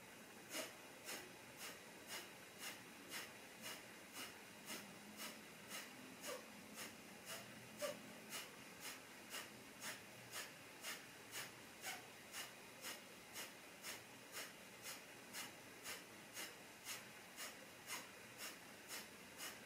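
Kapalabhati breathing: a steady run of short, sharp exhalations pushed out through the nose by pulling in the belly, about two a second, each followed by a passive, silent inhale.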